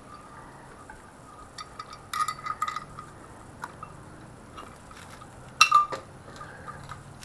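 Hand tools and metal engine parts clinking against each other during engine disassembly: a cluster of light clinks about two seconds in, then a louder double clink near the end.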